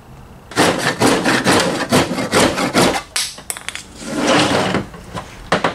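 A saw cutting through 1-inch PVC pipe in a quick run of back-and-forth strokes for about two and a half seconds. One longer scrape follows about four seconds in, and a few sharp clicks come near the end.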